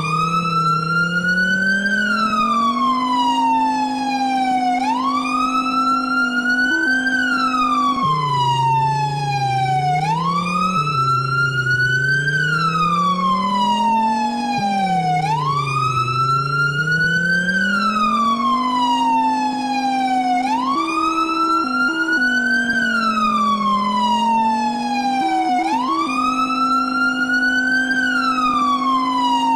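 Siren wailing, its pitch climbing quickly and falling slowly in a cycle of about five seconds, over a lower droning tone that shifts in pitch in steps.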